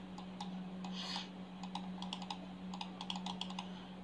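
Faint, scattered clicks of a computer mouse as lines are selected and a right-click menu is opened, with a short cluster of quick clicks near the end. A steady low hum runs underneath.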